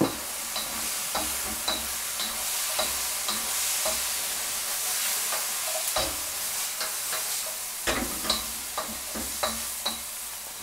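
Courgette strips and pork stir-frying in a hot wok: a steady sizzle, with a wooden spoon scraping and knocking against the wok in many irregular clicks and a few louder knocks.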